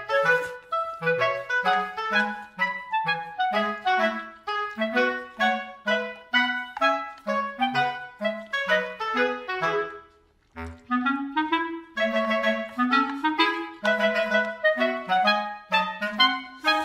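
Instrumental background music: a light tune of short, quick notes over lower notes, breaking off briefly about ten seconds in and then resuming.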